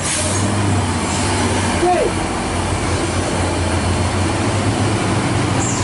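Heavy dump truck's diesel engine running steadily under load as it pulls away uphill, a deep, even hum, with other traffic passing.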